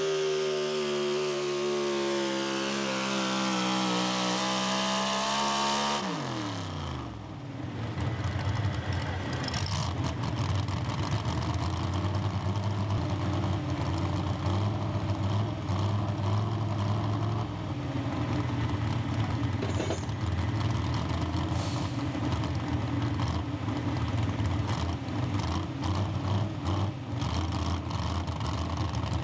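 Pro Stock 4x4 pulling truck's engine at full throttle under the weight sled, its pitch sagging as the load builds. About six seconds in the throttle comes off and the engine winds down fast, ending the pull. It then idles with a steady low rumble.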